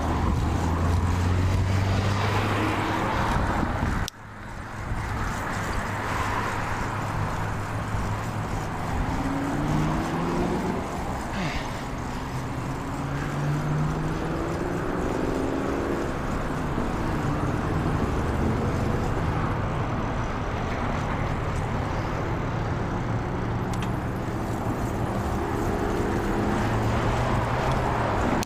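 Wind and road noise while riding a bicycle along a road, with the engines of passing cars rising and falling in pitch. The sound drops out sharply for a moment about four seconds in.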